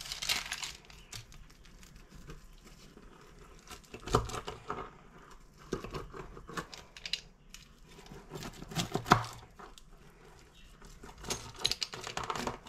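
Rolling pizza cutter wheel cutting through a thin-crust baked pizza on baking parchment in several separate strokes: crunching of the crust and crinkling of the paper.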